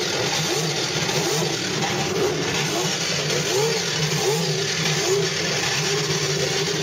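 Racing car engines at high revs, the pitch swooping up and down in short rises and falls about once or twice a second.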